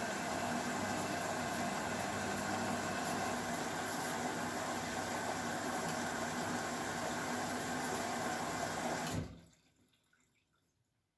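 Water running in a Beko WML 51211 EL+ washing machine, a steady rushing noise that cuts off abruptly about nine seconds in.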